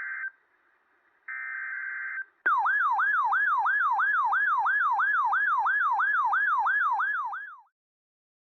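Emergency Alert System broadcast tones: the tail of one digital header burst and then a full one, each a harsh buzzing data burst about a second long. Then a loud siren-like attention tone sweeps downward over and over, about three times a second, for about five seconds before cutting off.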